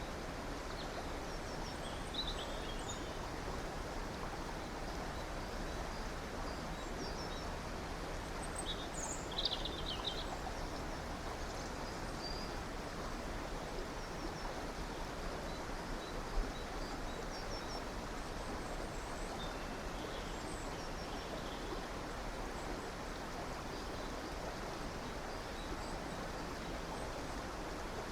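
Steady rush of a flowing river, with scattered high bird chirps over it; the loudest chirping comes about nine seconds in.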